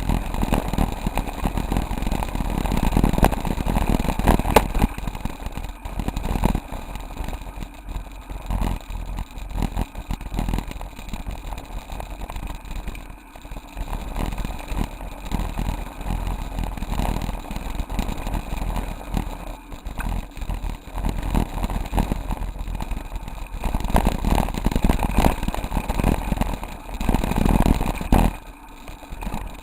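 Waterfall rushing: a loud, low, uneven noise that swells and dips without a pause.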